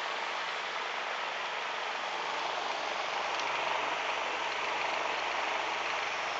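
Humidifier running with a steady, even hiss.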